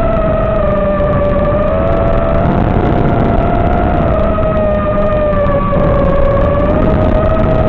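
Electric motors and propellers of a low-flying FPV aircraft, heard from on board: a steady whine whose pitch drifts slightly up and down, over heavy wind rush.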